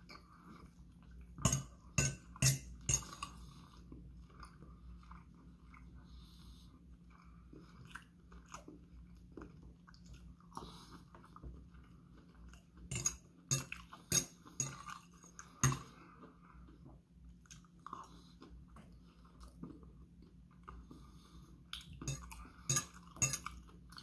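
A person chewing a mouthful of turkey, stuffing and vegetables, with a metal fork clinking and scraping on a plate in several short clusters of sharp clicks.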